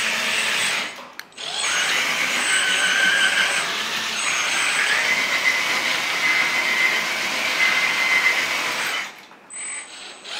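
Hydraulic pump and valves of a 1/14 JDMODEL EC360 V2 hydraulic RC excavator running as the machine is worked: a high motor whine whose pitch shifts as the controls are moved. It drops out briefly about a second in and again near the end.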